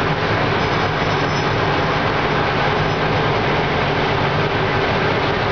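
Wirtgen W2200 road planer taking a heavy cut: its diesel engine working hard under load while the milling drum grinds up the asphalt, a loud, steady din with a low engine hum.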